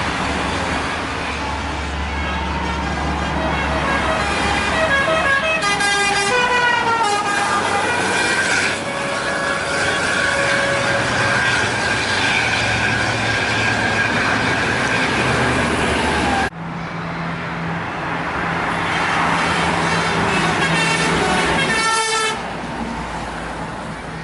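Indonesian bus 'telolet' horns, multi-tone musical air horns, playing quick runs of changing notes about six seconds in and again near the end, with a long held note in between. Passing bus engines and traffic noise run underneath.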